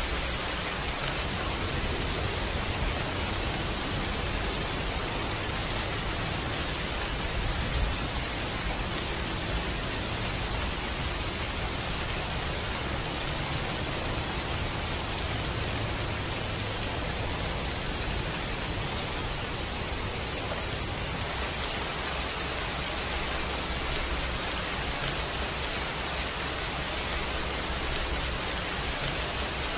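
Steady rain, an even hiss across the whole range with a low rumble beneath, used as the masking bed of a subliminal recording.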